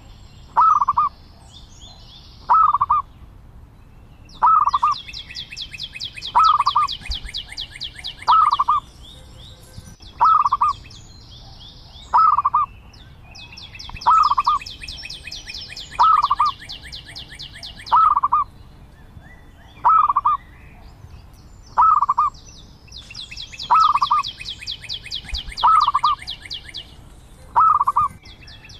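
Zebra dove calling: a short cooing note repeated evenly about every two seconds. Three times a fast high-pitched trill lasting a few seconds runs alongside it.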